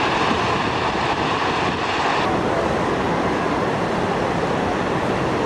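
Steady rushing noise of the Seti River in flood: a surge of floodwater running high and fast.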